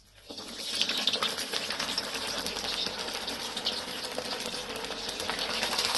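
Hot oil in a kadhai sizzling and crackling vigorously as a water-dipped bread roll is slid in to deep-fry. It starts suddenly just after the beginning and keeps up a steady, dense crackle.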